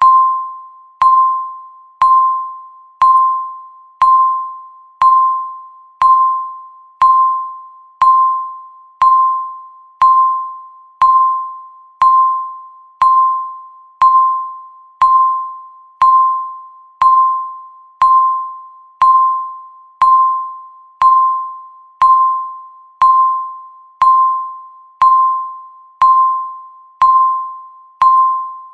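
A countdown timer's tick sound: a short, pitched electronic tick, once a second, each with a sharp attack that fades quickly.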